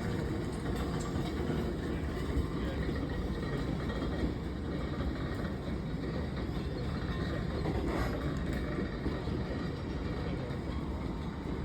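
Loaded stone freight train moving slowly along the track, a steady low rumble of the train and its wagons, with a faint knock about eight seconds in.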